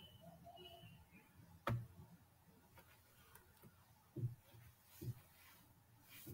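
Quiet room with three faint, sharp clicks spread over a few seconds, the first the loudest.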